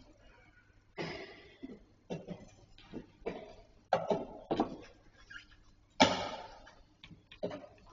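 Chess pieces being set down and chess clocks being pressed during fast games: an irregular run of sharp wooden and plastic knocks and clacks, the loudest about six seconds in.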